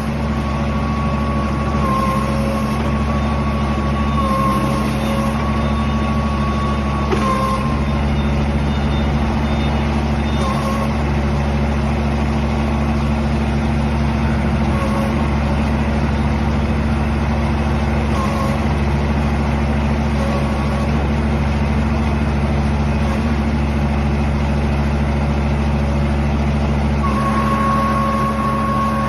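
The single-cylinder air-cooled diesel engine of a 1-ton mini excavator running steadily. A higher whine sits over the engine and dips and breaks off several times.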